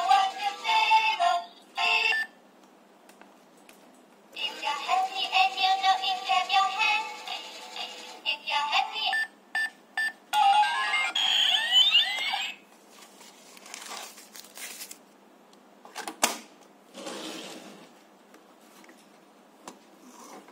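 Electronic toy piggy bank playing its tinny built-in melody through a small speaker, stopping for about two seconds and starting again for about eight. Later come quiet plastic rubbing sounds and one sharp click as the toy is handled.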